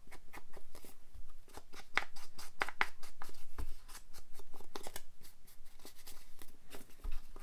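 Foam ink blending tool scrubbed back and forth along the edge of a sheet of paper to ink and distress it: a fast run of short, dry, scratchy swipes, with a few low knocks among them.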